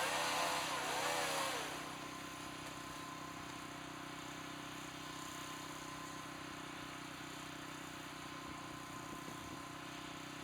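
Chainsaw running, its pitch rising and falling for about two seconds before it stops. A steady engine drone carries on after it.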